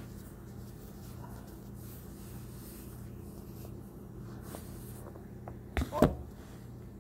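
Steady low hum, then two sharp bumps close together about six seconds in as the recording phone is knocked and handled.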